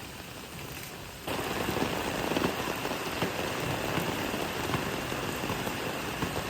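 Steady rain falling and pattering, which gets abruptly louder just over a second in.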